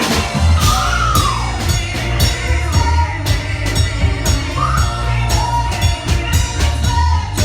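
Live R&B performance: a woman singing over a live band, with drums keeping a steady beat and a strong bass line.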